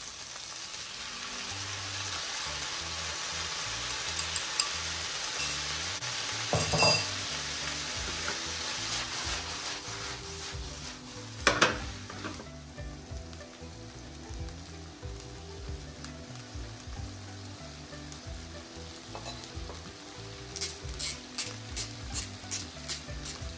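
Konjac strips and vegetables sizzling in a hot frying pan as the stir-fry sauce is poured in and tossed with chopsticks. The sizzle is loudest in the first half and eases about halfway, with two sharp knocks, one about seven seconds in and one about twelve seconds in. Near the end a wooden pepper mill grinds in quick clicks.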